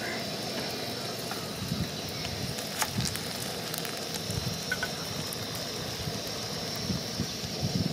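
Hot oil sizzling steadily as a slice of bread fries in a small pan, with a couple of sharp ticks about three seconds in.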